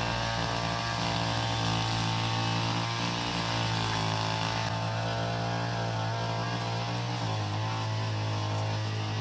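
Small petrol brush cutter engine running steadily at cutting speed as it trims weeds, its note shifting slightly about seven seconds in.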